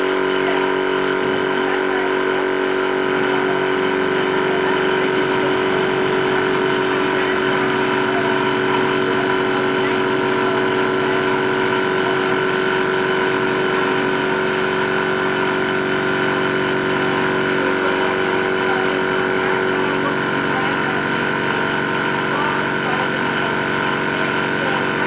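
Two-stage reciprocating high-pressure PCP air compressor running steadily as it fills a carbon fibre air cylinder, the electric motor and its cooling fan giving a constant mechanical hum with a steady high whine.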